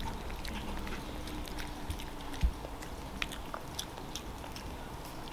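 Shih Tzu chewing a duck jerky treat: soft, scattered clicks and crunches, with one louder thump about two and a half seconds in.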